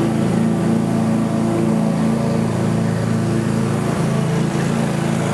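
A motor running with a steady, even hum.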